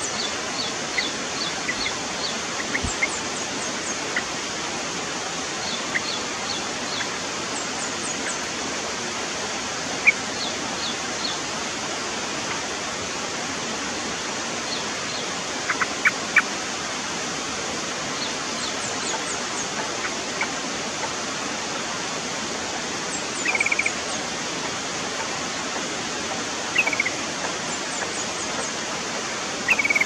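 Yellow-vented bulbul giving scattered short high chirps every few seconds, with three brief louder bursts of bubbly calls near the end, over a steady loud hiss.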